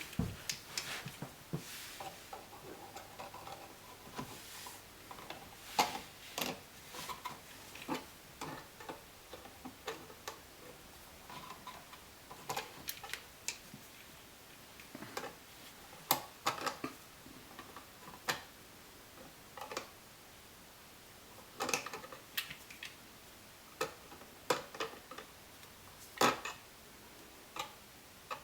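Irregular small clicks and metallic taps of hand tools and outlet hardware being handled while an outlet is being changed, with scattered louder knocks.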